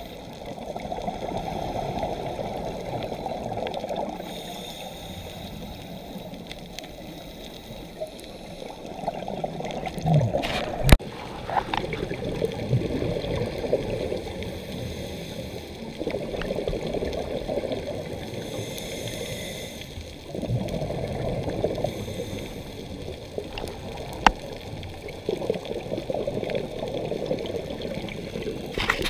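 Scuba diver's exhaled breath bubbling from the regulator underwater, a gurgling rush that comes in bursts every several seconds with quieter gaps between breaths. A sharp click about eleven seconds in.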